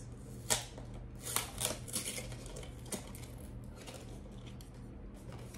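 Small cardboard blind box being slit open with a craft knife and its flap pried up: a scatter of light clicks, taps and scrapes of cardboard, the sharpest about half a second in and again around a second and a half in.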